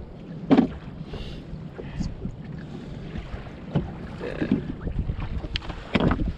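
Wind buffeting the microphone over water moving against a small skiff's hull, with a few sharp knocks, the loudest about half a second in and near the end.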